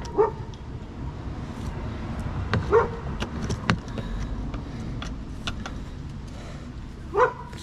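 A dog barks a few short single times, seconds apart. Scattered light clicks and scrapes come from working the worn rubber jack pad out of the car body.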